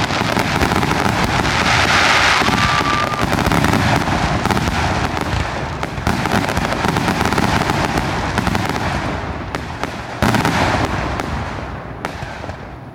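Fireworks finale barrage: aerial shells bursting in rapid succession amid continuous crackling, with a brief whistle about two and a half seconds in and one loud bang about ten seconds in. The barrage thins out near the end.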